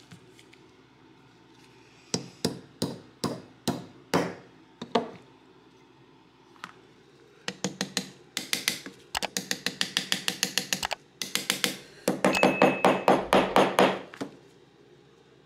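Small hammer tapping on a punch to drive a pin out of a rusted Mauser C96 pistol frame: about eight single taps, then fast runs of rapid taps from about halfway, loudest near the end.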